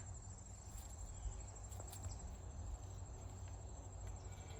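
Crickets trilling, a steady high-pitched pulsing, over a low steady rumble and a few faint clicks.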